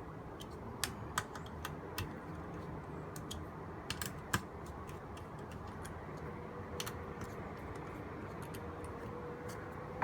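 Scattered, irregular small clicks and taps of a screwdriver working the screws of a graphics card during reassembly, over a steady background hum.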